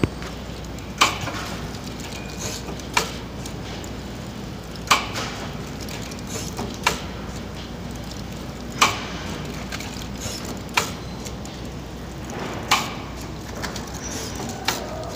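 DPP-160 blister packing machine running: a steady low hum with a sharp mechanical clack about every two seconds, eight in all, and lighter ticks between them, the rhythm of its repeating work cycle.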